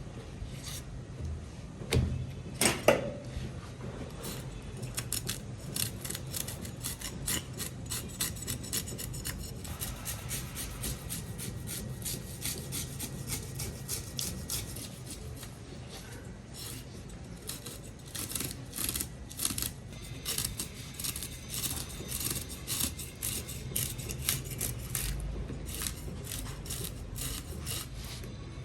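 Rapid, repeated rasping scrapes of a blade over a red grouper's skin as the fish is scaled, with a couple of louder knocks about two to three seconds in.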